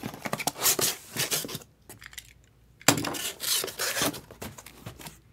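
Cardboard boxes and packaging being handled on a tabletop: scraping, rustling and knocks in two bouts, the second opening with a sharp knock about three seconds in.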